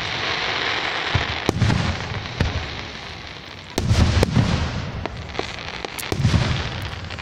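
Aerial firework shells bursting overhead: a string of deep booms mixed with sharp cracks, the loudest booms starting about four seconds in. A steady hiss fills the first couple of seconds.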